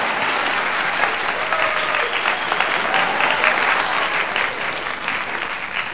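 Crowd applause, a dense steady clapping that tapers off near the end.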